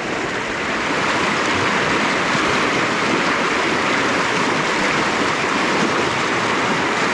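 Fast stream water rushing over rocks through a white-water riffle: a steady rushing noise that gets a little louder about a second in.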